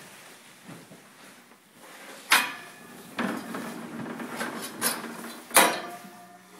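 A sleeping horse snoring, with a rough, noisy stretch of breathing in the second half. Two sudden loud bursts stand out, one about two seconds in and one about a second before the end.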